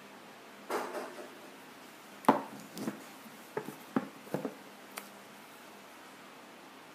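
A cardboard earphone box being handled and turned over: a short rustle, then a sharp knock about two seconds in, followed by several lighter taps and clicks.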